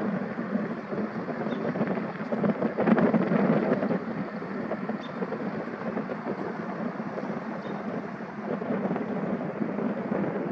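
Twin-engine propeller airplane taxiing at low power, its two engines and propellers making a steady, rough drone. The drone gets louder for a second or so about three seconds in.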